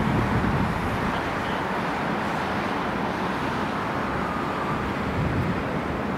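Steady distant jet noise from an Airbus A320-214's two CFM56-5 engines as the airliner rolls out along the runway after touchdown.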